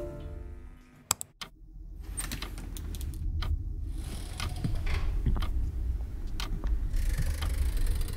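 Sound-effects room ambience: a steady low hum with scattered small clicks and rattles, after music fades out in the first second.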